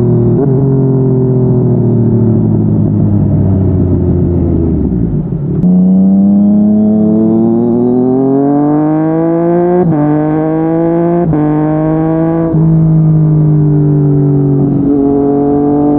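Yamaha MT-09 three-cylinder engine through a Yoshimura R55 slip-on exhaust, riding at a steady pace, then accelerating with the pitch rising. About two-thirds of the way through it shifts up two or three times in quick succession, each shift a brief sharp cut and a step down in pitch, typical of a quickshifter, before settling into steady cruising.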